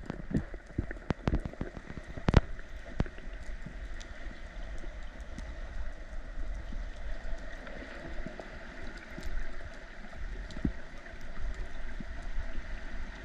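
Underwater ambience: a steady crackling hiss, with several sharp clicks and knocks in the first few seconds.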